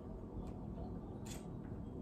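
Quiet eating noises: a faint short click, then a sharper one about halfway through, over a low steady hum.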